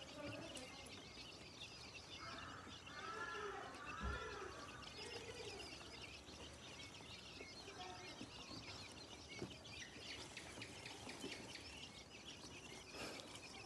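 Asian koel chicks chirping continuously, with a run of louder, arching calls about three seconds in.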